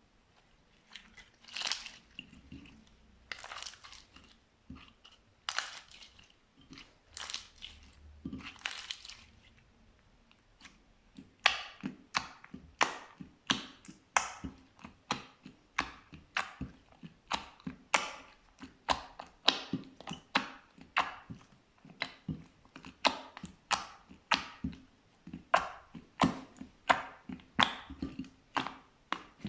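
Slime being squeezed and worked by hand. There are a few irregular squishes at first, then from about a third of the way in a steady run of sharp crackling clicks, about two a second.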